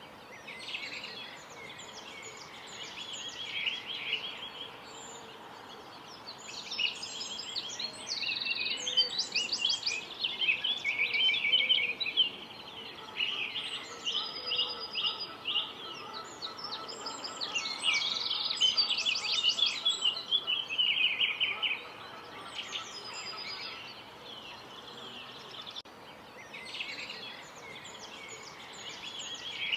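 Several small birds chirping and calling over one another in quick high chirps and rapid trills, swelling to two louder spells of dense chatter.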